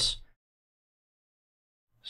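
Dead silence, with no room tone, after the tail of a spoken word fades out at the very start.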